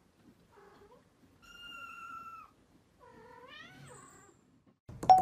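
Kittens mewing: three thin, high meows spaced about a second apart, the last one rising in pitch. Near the end a bright musical note strikes.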